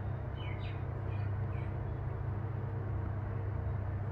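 Steady low background hum, with a few faint short chirps in the first couple of seconds.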